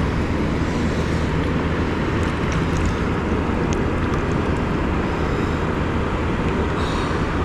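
Steady rumbling wind noise on the microphone over beach surf, with a few faint ticks.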